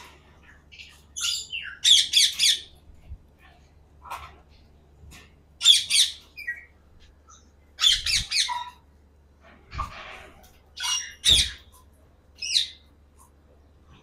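Caged Alexandrine and ring-necked parakeets squawking, about six short harsh calls spread out over several seconds.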